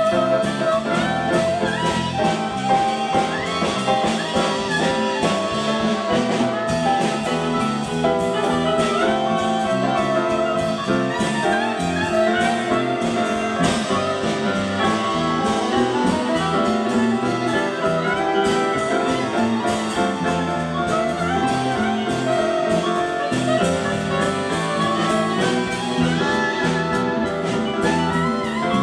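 Live jazz band playing, a saxophone carrying the melody over keyboards and drums.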